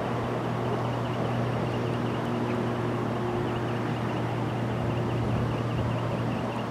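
Steady rushing hiss of high-pressure water gushing from a fire hydrant broken off by a car, heard from far off, with a low steady hum underneath and faint high chirps repeating a few times a second.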